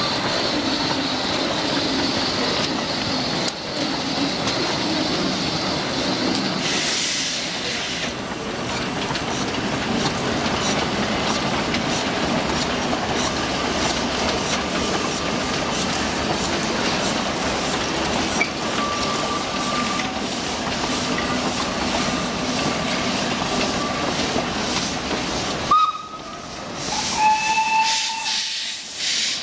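Two narrow-gauge steam locomotives working hard with a passenger train: a steady hiss of steam with evenly spaced exhaust beats. Near the end the sound drops away and a few brief high tones sound.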